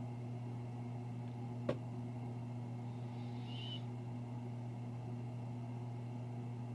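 A steady low hum throughout, with a single sharp click about two seconds in and a faint, brief high chirp a little later.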